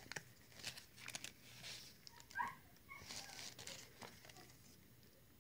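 Faint rustling and light clicks of a CD being handled in a white paper sleeve, with a slightly louder paper scrape about halfway through.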